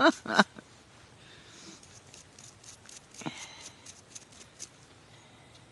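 Faint scratching and small clicks as dirt is brushed off a small toy motorcycle, with a louder scrape about three seconds in.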